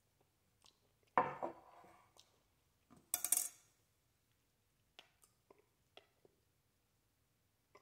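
A metal spoon and a ceramic bowl clatter as the bowl is set down on a table: two clinking knocks, about a second in and about three seconds in. The first has a short ringing tail, and the second is brighter and made of several quick clicks. A few faint small clicks follow.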